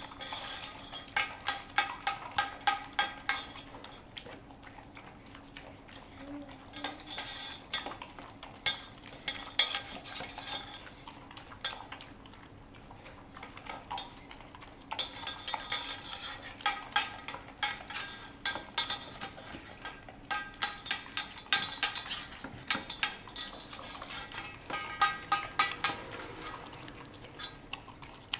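Saint Bernard puppy eating its breakfast from a food bowl: the bowl and kibble clink and rattle in bursts, with a couple of quieter pauses of a few seconds.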